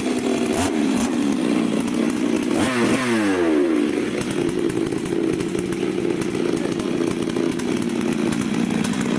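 Stihl MS 382 two-stroke chainsaw engine running steadily after a rebuild with a new cylinder and piston, with a brief change in engine speed about three seconds in.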